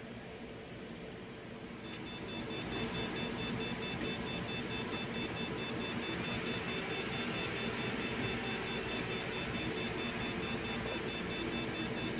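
Gigabyte motherboard's POST buzzer beeping continuously in rapid, evenly spaced high-pitched beeps, starting about two seconds in and going on without a pause: a beep-code error at power-on. A steady fan hum runs underneath.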